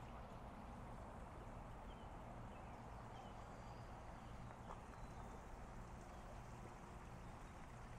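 Faint outdoor ambience: a steady low rumble and hiss with a few short, faint bird chirps scattered through it.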